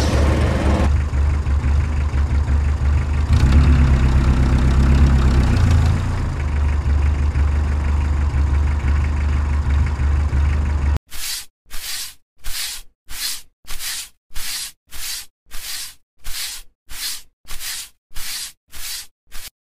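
Steady low tractor engine drone as the mini tractor drags its tine cultivator through sand, cutting off suddenly about eleven seconds in. A regular swishing follows, about two strokes a second.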